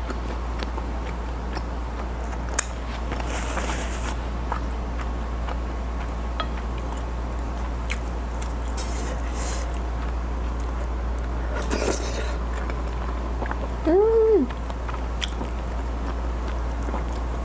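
Eating sounds: a metal fork scraping and tapping on a ceramic plate of pasta, and chewing, as small scattered clicks over a steady low hum. About 14 seconds in, a short pitched sound rises and falls once, the loudest moment.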